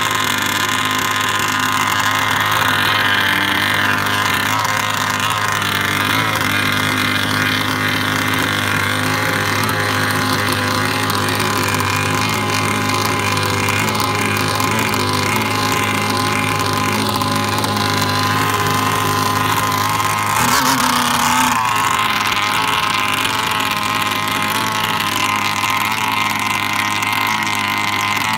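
Large RC boat's twin-cylinder two-stroke gas engine running slowly and steadily, briefly louder about twenty seconds in.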